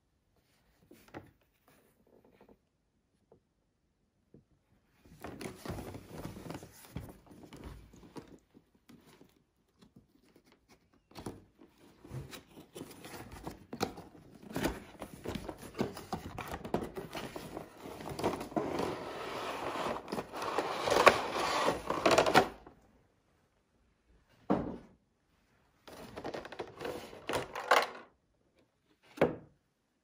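Cardboard box and clear plastic blister tray being handled: irregular rustling and scraping as the box flap is opened and the tray is slid out, loudest a few seconds before the end. Then a few short knocks and scrapes as the tray is set down.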